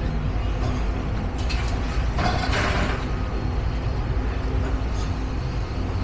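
Steady low rumble of a heavy vehicle's engine, with a short hiss about two seconds in.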